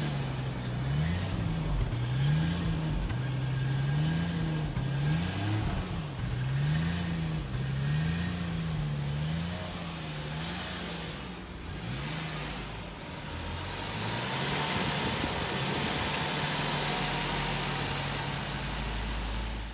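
1986 Jaguar XJS C engine running just after a cold start. For about the first twelve seconds the revs rise and fall about once a second, then the engine settles to a steady idle.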